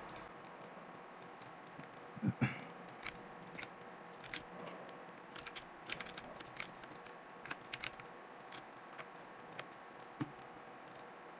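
Faint, irregular clicks of a computer mouse and keyboard over a faint steady hum, with a louder low bump about two seconds in.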